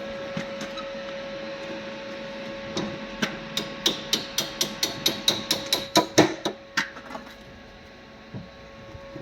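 Hammer striking metal in a rapid run of blows, about four a second, through the middle few seconds, several of them ringing.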